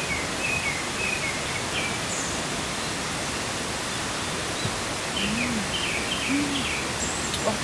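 A steady, even hiss of outdoor background noise, with small birds chirping a few times. Two short low hoots come about five seconds in and again a second later.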